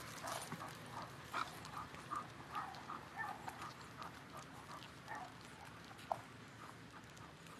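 A small dog and its walker moving along a paved road: a faint, quick, even patter of about three soft sounds a second that eases off near the end.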